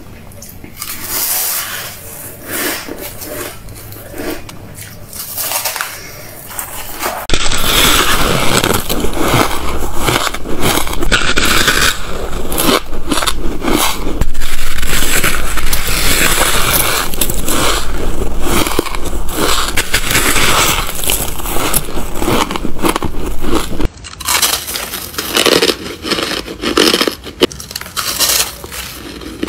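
Close-miked crunching and chewing of mouthfuls of shaved ice and freezer frost: a dense run of crackling bites.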